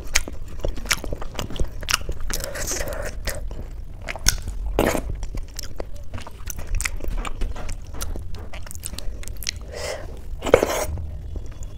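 Fingers squishing and mixing soft boiled rice with dal and potato on a steel plate, making many small wet clicks and squelches with fingertips scraping the metal. Near the end a handful goes into the mouth, with a loud wet eating sound.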